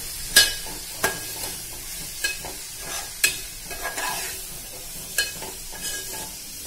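Metal spoon stirring boiled peanuts and chilli powder in a steel pan, clinking and scraping against the pan about six times at uneven intervals, the loudest about half a second in. Under it is a faint sizzle of the hot oil.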